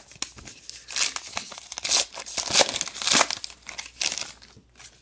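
Foil wrapper of a baseball card pack being crinkled and torn open by hand: a dense, uneven run of crackling that is loudest in the middle and dies away near the end.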